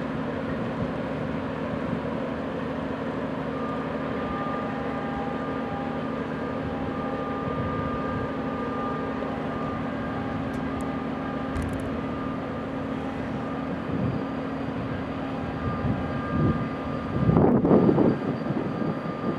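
Distant freight train hauled by an electric locomotive running past: a steady rumble and hum, with a faint high whine coming and going in the middle. Wind gusts buffet the microphone near the end.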